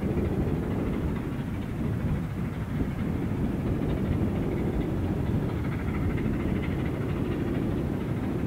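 Steam locomotive running unseen, a steady low rumble of exhaust and train noise.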